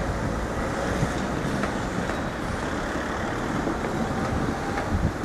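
Cars driving across the level crossing: engine and tyre noise of road traffic, with a couple of louder bumps near the end.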